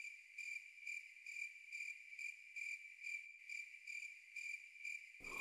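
Faint crickets chirping in an even pulsing rhythm, about two to three chirps a second: the stock comedic awkward-silence sound effect.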